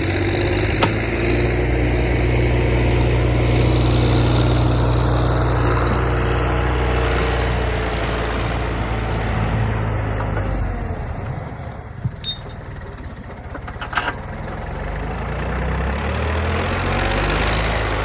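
John Deere backhoe's diesel engine running steadily under load. It eases off and quietens for several seconds past the middle, with a couple of light knocks, then comes back up near the end.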